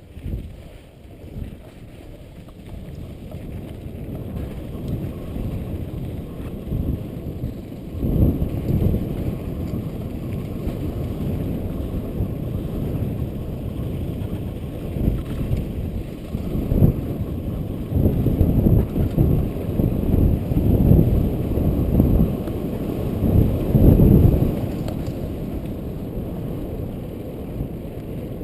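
Wind buffeting the microphone as the rider picks up speed downhill. It is a low rushing noise that builds a few seconds in, then gusts unevenly and loudly.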